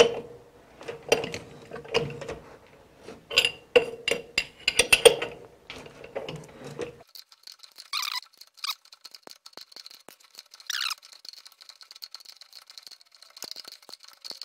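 Irregular metal clicks and clinks from a 7/8-14 tap threading a hole, the tap held in the lathe chuck. After a break come a few short metal squeaks as the chuck and tap are worked with a wrench.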